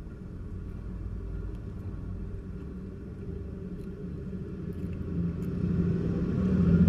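A motor vehicle's engine running with a low, steady-pitched rumble that grows louder from about five seconds in.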